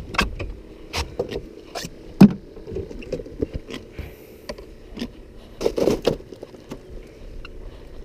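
Irregular knocks and clattering on a fishing boat, the loudest about two seconds in and a cluster near six seconds, over a faint steady hum.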